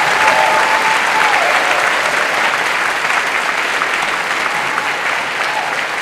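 Theatre audience applauding steadily at a curtain call, the clapping slowly fading.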